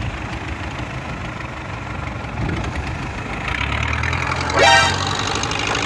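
A wooden fishing boat's engine runs steadily, its low hum growing louder about three and a half seconds in. Near the end a short, loud rising tone cuts in over it.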